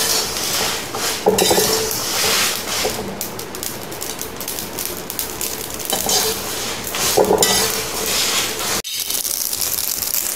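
A metal spatula stirs and scrapes dried red chillies, mustard seeds and fenugreek roasting in a steel pan, with irregular clatter, while the mustard seeds crackle as they pop, the sign that the pickle masala is roasted enough. The stirring stops near the end, leaving a steadier crackle.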